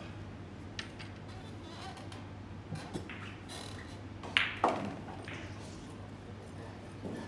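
Pool shot: the cue tip strikes the cue ball, and a louder click of ball hitting ball follows about a third of a second later. A few fainter ball clicks come earlier, over a steady low hum.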